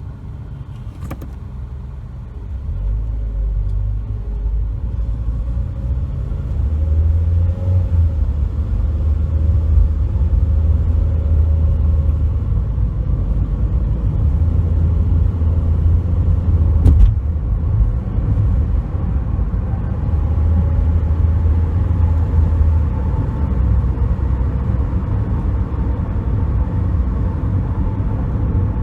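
A 2007 Toyota Corolla being driven: a steady low engine and road rumble that builds over the first several seconds and then holds. Two sharp clicks, one about a second in and one near the middle.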